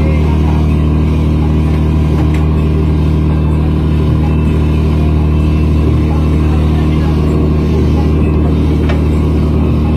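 Fishing boat's engine running with a steady deep drone that does not change in pitch or level, with voices faintly behind it.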